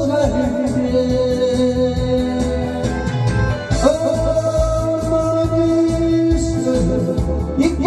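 A man singing a Korean trot song into a microphone over karaoke backing music, holding long notes, the longest held for several seconds through the second half.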